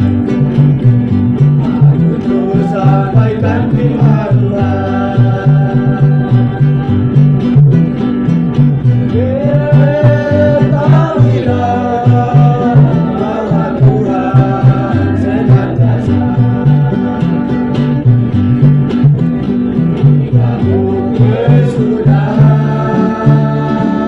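A vocal group singing a Christian spiritual song in harmony over plucked-string accompaniment, with a steady pulsing bass line.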